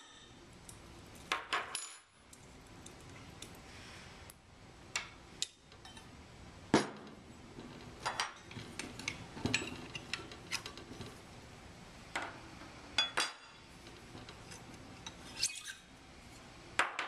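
Stainless steel sampler housing and parts being handled on a workbench: scattered metallic clinks and knocks as the housing is stood on end and its packing spacers are taken out, the sharpest knock about seven seconds in.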